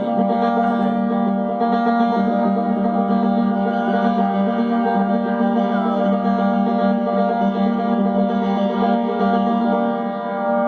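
Music: a steady drone of many held instrument notes sounding together, unchanging in pitch, in an experiment with notes and frequencies rather than chords.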